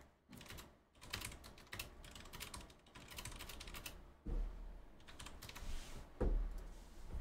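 Typing on a computer keyboard, a quick run of key clicks, followed by two dull low thumps about four and six seconds in.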